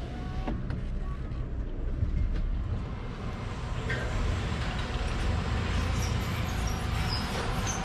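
Steady low mechanical rumble with a few light clicks.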